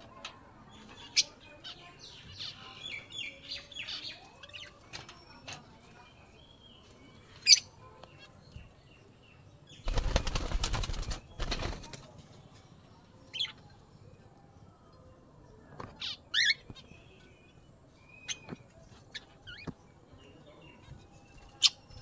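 Caged birds, among them lovebirds, giving short, sharp, high chirps, scattered singly and in a brief cluster, over a steady high hiss. About ten seconds in there is a loud two-second flurry of rustling.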